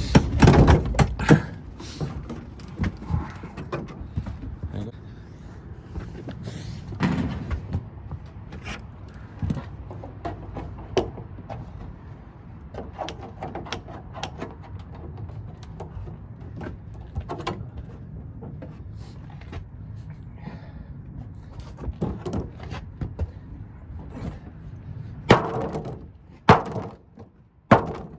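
Irregular hammer blows and bangs as an air-conditioning plenum box is knocked apart, heaviest at the start, again about seven seconds in and near the end.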